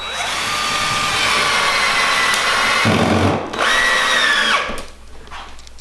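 Cordless drill running under load into a willow pole: one long steady run of about three and a half seconds, a brief stop, then a second shorter burst whose whine rises and falls in pitch.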